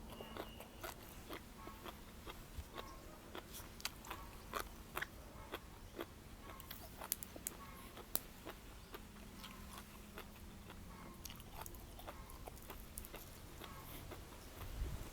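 Person eating close to the microphone: chewing and crunchy bites, with many small sharp clicks at irregular intervals.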